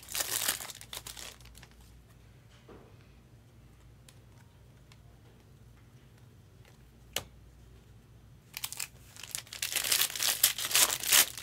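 Crinkling of trading-card pack wrappers as packs are handled and opened, for about the first second and again through the last three seconds, with quieter handling and a sharp click about seven seconds in.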